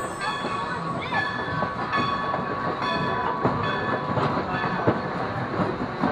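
Open-air passenger car of a steam train rolling along the track: a steady rumble with irregular clicks and clacks from the wheels over the rail joints.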